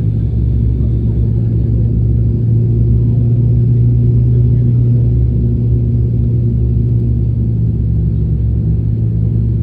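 Cabin drone of an ATR turboprop airliner: the engines and propellers make a steady low hum over a rushing noise, swelling slightly a few seconds in.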